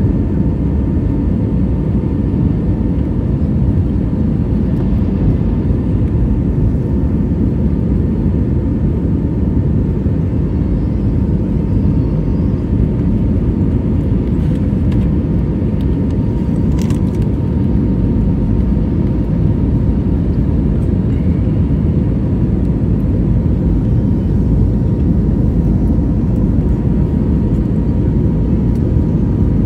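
Steady cabin noise inside an Airbus A320neo climbing after takeoff: a low, even rumble of engines and airflow with a faint steady tone on top. One brief click about halfway through.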